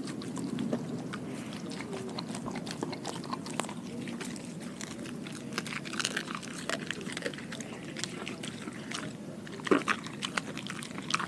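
A German shepherd mix dog chewing a whole raw fish, with irregular wet crunches and bites as its teeth work through the bones. One louder crunch comes near the end.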